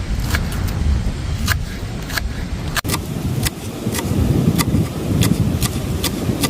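Strong wind buffeting the microphone in a fluctuating low rumble, with a sharp tick repeating about every half second or so.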